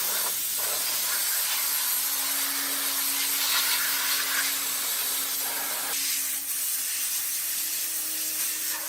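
A steady hissing spray, even and unbroken, with a faint low hum beneath it.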